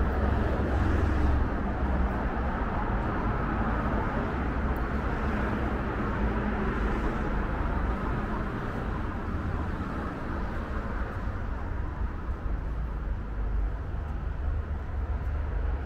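Steady city street noise of passing road traffic, with a deep low rumble.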